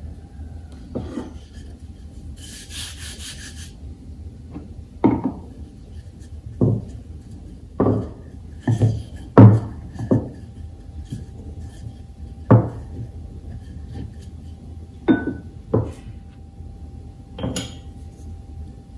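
Irregular dull knocks and thuds on a wooden work surface during kitchen food preparation, about a dozen spread over the stretch, with a short rustle near the start and a faint steady hum underneath.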